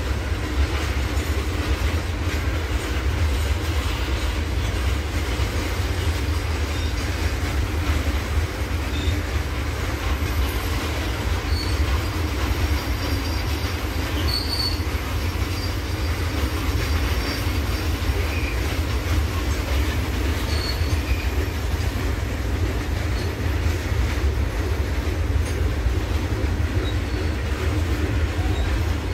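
Open box wagons of an Indian Railways goods train rolling past, a steady low rumble of steel wheels on the rails, with a few brief high wheel squeals around the middle.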